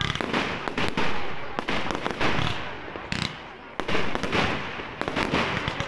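Aerial fireworks shells bursting: about half a dozen loud bangs in under six seconds, each fading out, with smaller pops and crackles between them.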